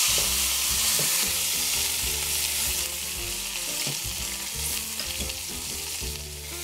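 Pork roast sizzling as it browns in hot oil and butter in a stainless steel pot, with light scrapes and knocks as it is turned with a wooden spatula and fork. The sizzle eases a little about halfway through.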